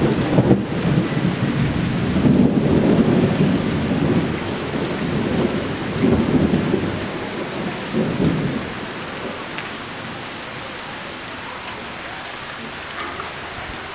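Rolling thunder rumbling in several surges and fading away about eight or nine seconds in, over the steady hiss of falling rain.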